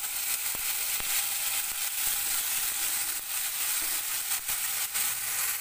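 Cumin paste frying in hot mustard oil in a wok: a steady sizzle with frequent small crackles and spits, while a spatula stirs it around the pan.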